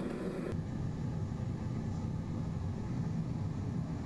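Gas forge burner running with a steady rushing noise, strongest low down, while it heats a steel bar.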